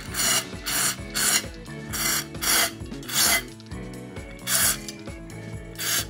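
Aerosol parts cleaner (Wako's BC9) sprayed through its straw nozzle in about eight short hissing bursts, blasting grime off a spinning reel's rusted line roller bearings inside a tin can.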